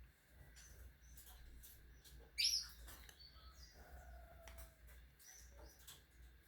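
Small birds chirping: scattered short calls among light clicks, with one loud sharp chirp about two and a half seconds in.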